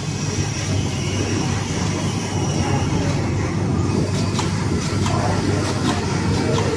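Flatbed digital cutting machine running as its cutting head works through layered suit fabric: a steady low hum under a continuous mechanical rumble, with a few light clicks in the second half.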